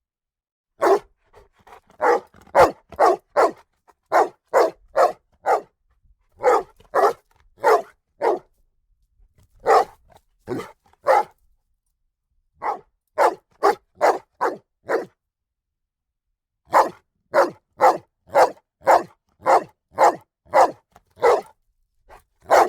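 A dog barking loudly in repeated bursts of several quick barks, with short pauses between the bursts.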